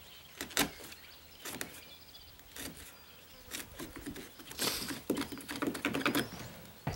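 Wood chisel paring and scraping the edge of a deadbolt strike plate mortise in a door jamb: short scrapes and ticks about once a second, coming faster in the last two seconds.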